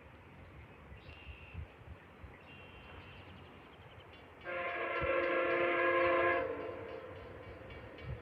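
A locomotive horn sounds one steady multi-note chord for about two seconds, starting about four and a half seconds in, over a low rumble.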